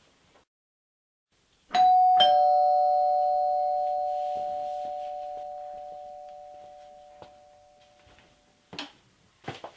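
Two-tone doorbell chime, ding-dong: a higher note, then a lower one, both ringing on and fading slowly over about six seconds. A couple of faint thumps follow near the end.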